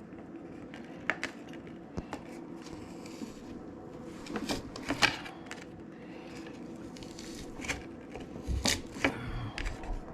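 Garlic clove being crushed by hand on a plate: scattered clicks, knocks and scrapes against the plate, busier about halfway through and again near the end.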